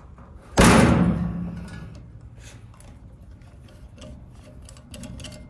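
A single loud metallic clank about half a second in that rings and fades over about a second and a half, as the valve stem installation tool snaps against the beadlock wheel when the TPMS valve stem pops into its hole. Faint handling clicks follow.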